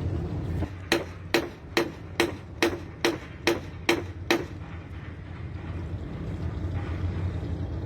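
A hammer striking nine times in quick succession, a little over two blows a second, each blow with a short ring, over a steady low hum.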